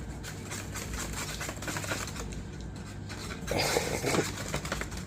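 Paper microwave popcorn bag being handled with cheese seasoning and popcorn inside: crinkling and rustling with small ticks of popped kernels moving, and a louder rustle a little past three and a half seconds in.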